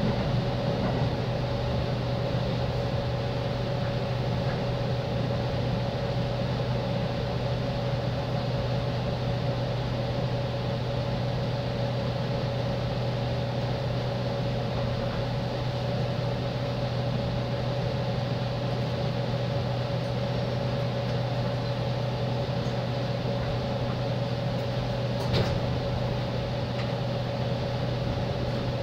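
Steady hum inside the passenger cabin of a JR East 205 series electric train, with a constant low drone and a steady mid-pitched tone, and one brief knock near the end.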